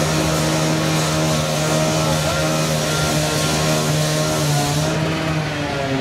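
An engine running steadily, a constant low hum with a broad rushing noise over it that drops away about five seconds in.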